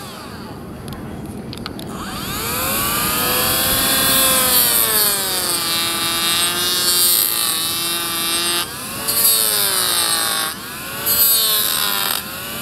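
Cordless mini grinder spinning a tungsten-carbide hoof grinder disc, grinding into a horse's hoof wall to debride a crack. The motor's whine dips and rises in pitch again and again as the disc bites and eases off, over a steady rasping grind.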